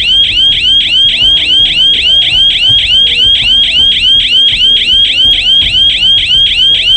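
Small 12-volt electronic alarm siren sounding continuously: a loud, shrill warble of short rising sweeps repeated about four to five times a second.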